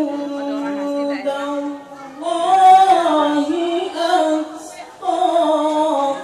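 A man chanting an Islamic devotional song in praise of the Prophet, unaccompanied, into a microphone. He sings long held, ornamented notes in three phrases, with brief breaks about two seconds in and again near the five-second mark.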